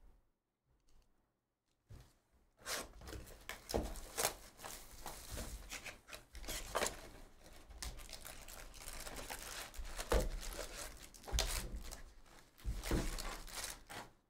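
A 2022 Panini Select football hobby box being torn open, with crinkling of wrapping and cardboard and sharp rustles and knocks as its foil packs are pulled out and stacked. It starts about two and a half seconds in.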